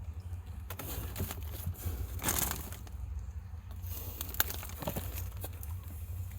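New Whirlpool refrigerator humming steadily, with irregular crackles and short hisses over the hum, the loudest about two seconds in. It is an odd noise that the owner doubts is normal for the fridge.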